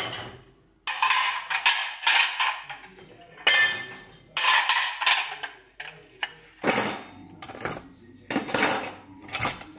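White ceramic plates clinking and clattering against each other as they are taken out of a dishwasher and stacked: a string of sharp clinks with short ringing tails, and a few heavier knocks in the second half.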